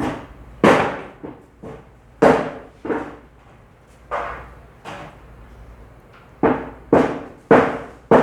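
Butcher's cleaver chopping mutton into small pieces on a wooden block: about nine heavy, irregular strikes, several coming in quick succession near the end.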